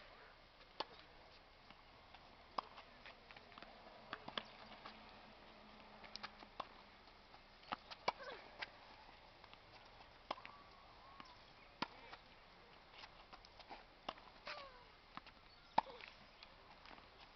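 Tennis balls being struck by rackets and bouncing on a hard court: a series of faint, sharp knocks at irregular intervals.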